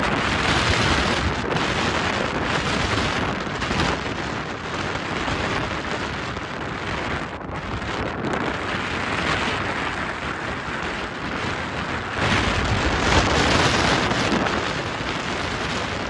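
Strong wind buffeting the microphone in gusts over a rough sea, a steady loud rush that swells near the start and again about three quarters through.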